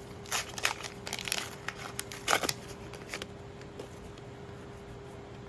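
Crinkling plastic and cards being handled, a quick run of crackly rustles over the first three seconds, the loudest just past two seconds in, then only a faint steady hum.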